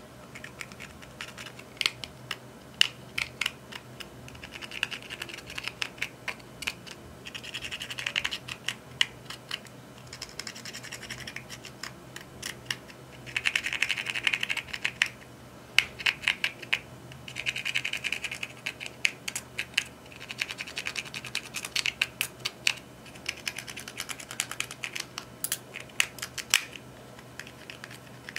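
A thin pick scraping and prying pressed eyeshadow out of the pans of a plastic palette: quick irregular clicking taps, broken by stretches of gritty scraping a second or so long.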